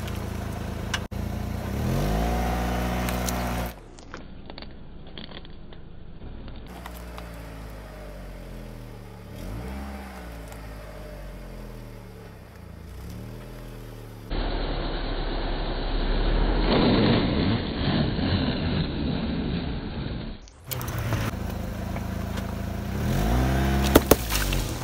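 A car engine running as the car rolls slowly over objects, its pitch rising and falling several times across a series of short clips. In the middle comes a stretch of crackling and crunching under the tyre. Near the end there is a sharp pop as a milk carton bursts under the wheel.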